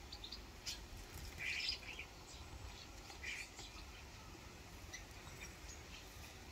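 Common starlings, juveniles and an adult, giving short high calls several times at irregular intervals.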